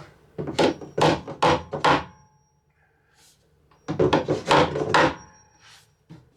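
Wooden kitchen wall cabinet knocking and scraping against the wall as it is shifted into position, in two runs of several knocks each with a pause between.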